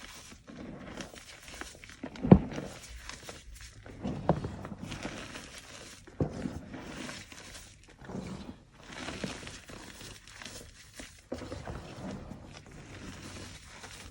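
Chalk crunching close to the microphone, a crunchy burst every second or so, with the loudest snap about two seconds in.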